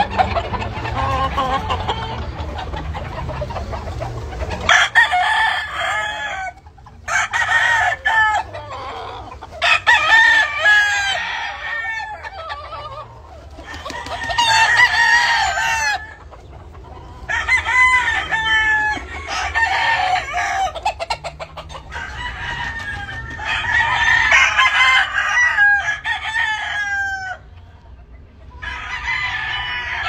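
Gamefowl roosters in pens crowing, crow after crow, some overlapping, with gaps of a second or two between them. A rough noise fills the first few seconds before the crowing starts.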